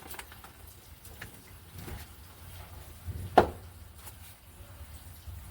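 Window-cleaning scrubber rubbing cleaning solution over window glass, with one sharp knock a little after halfway.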